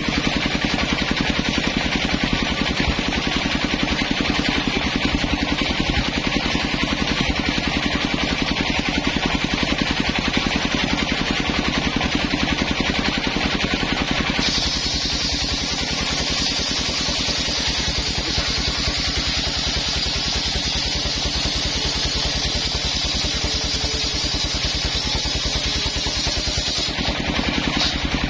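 Engine-driven homemade circular saw bench running steadily with a rapid firing beat as its large blade spins. From about halfway through, the blade cuts into a coconut-wood log, and a higher, noisier cutting sound joins the engine.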